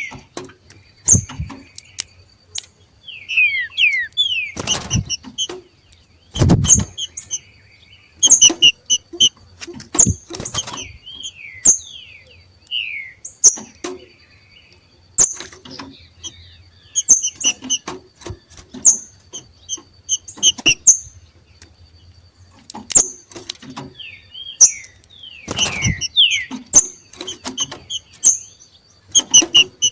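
Two green-winged saltators (trinca-ferro) giving their 'macheado' calls: bouts of short, sharp chirps and quick downward-sliding notes, repeated every second or two. Several loud sharp thumps cut in, the loudest about six seconds in.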